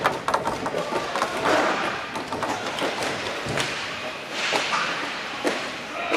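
Inline hockey play: scattered sharp clacks of sticks and puck striking each other and the plastic tile floor, over the steady echoing ambience of a large hall.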